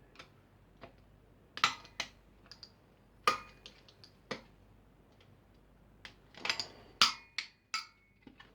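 Irregular sharp clicks and clacks of hand tools and metal computer parts being handled while a desktop PC is dismantled, a few of them leaving a short metallic ring; the loudest come at about one and a half, three and seven seconds in.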